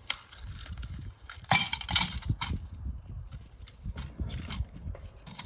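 Small metal hardware being handled and set against each other, clinking and clicking, with a louder burst of handling noise about a second and a half in that lasts about a second.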